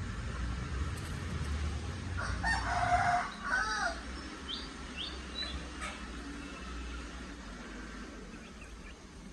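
A rooster crowing once, about two seconds in, in two drawn-out parts, over a low rumble. A few short high chirps follow.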